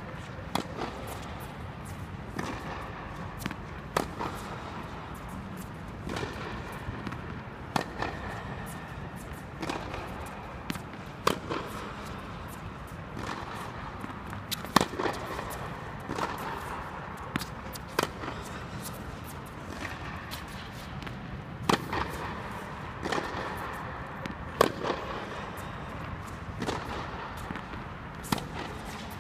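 Tennis balls struck by rackets and bouncing on the court during play: sharp pops every second or two over a steady background hiss.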